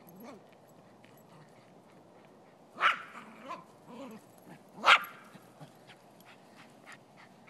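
Silky Terrier barking sharply twice, about two seconds apart, with softer yips in between.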